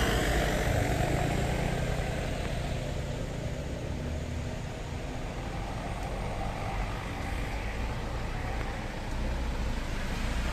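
Diesel truck engines running in a queue, a steady low rumble, with a light diesel truck's engine growing louder in the last couple of seconds as it drives up close.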